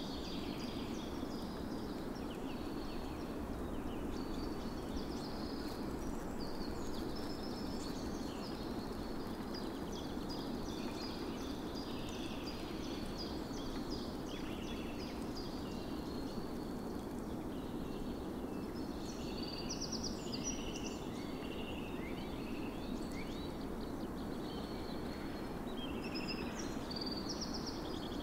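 Several birds singing, a continual scatter of short chirps and trills, over a steady low background hiss.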